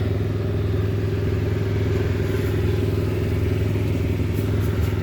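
A vehicle engine idling steadily nearby, a low even drone with a fast pulsing beat.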